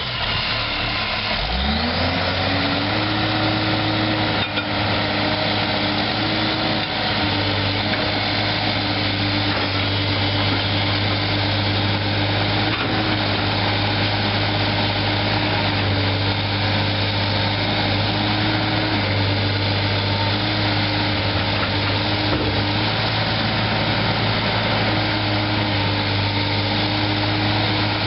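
Case 9040B excavator's Cummins 8.3-litre diesel engine just after starting. Its speed rises over the first two seconds or so, then it runs steadily.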